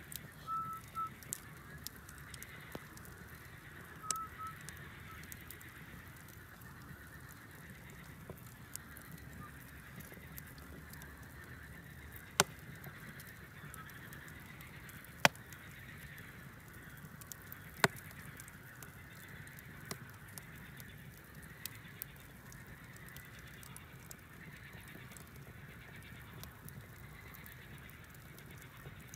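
Wood fire burning in a fireplace, crackling steadily with small ticks and a few loud, sharp pops around the middle. A few short, high squeaks come in the first few seconds.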